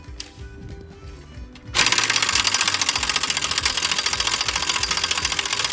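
Background music, then about two seconds in a pneumatic wrench starts up on a bolt of the 1937 Allis-Chalmers Model B and keeps running with a loud, rapid rattle.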